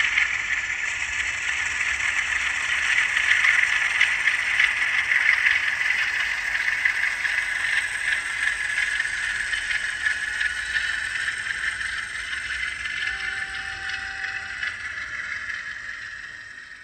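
N gauge Class 47 model locomotive running with its DCC sound decoder playing Class 47 diesel engine sound through its small on-board speaker, mixed with the rattle of the model running on the track. It grows gradually quieter and fades out near the end.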